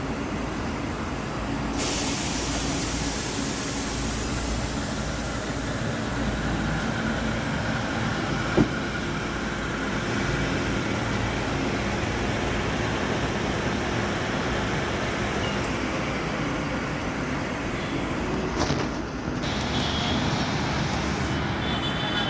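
Compressed air hissing out of car tyres as they are fully deflated before nitrogen filling, over a steady low mechanical hum. The hiss is brightest for a couple of seconds near the start. One sharp click comes about a third of the way through.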